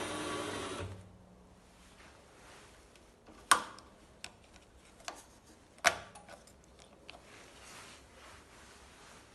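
WM210V-400 benchtop metal lathe running with a steady motor whine, switched off about a second in. Then a few sharp metallic clicks and knocks, two of them much louder than the rest.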